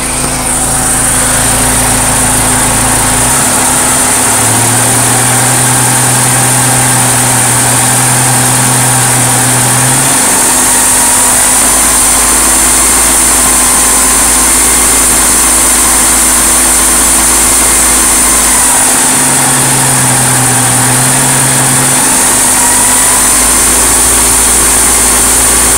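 Freshly rebuilt Porsche 944 four-cylinder engine idling steadily on its first run after the rebuild, with the electric radiator cooling fans running.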